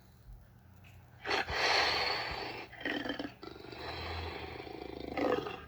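Custom monster roar sound effect: after about a second of low sound, a loud roar, a short second roar, then a lower fluttering growl, and another loud roar near the end.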